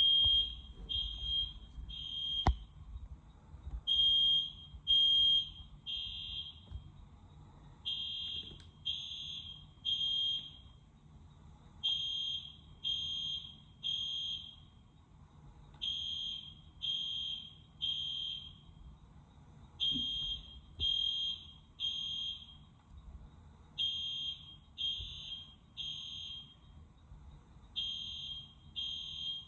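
EST Genesis fire alarm sounding the temporal-three evacuation signal: high-pitched beeps in groups of three, one a second, with a longer pause between groups. The tone is much like a smoke detector's.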